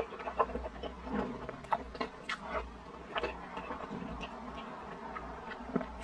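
Close-up chewing of sticky glutinous rice in brown-sugar syrup: wet mouth smacks and clicks at irregular intervals, over a faint steady hum.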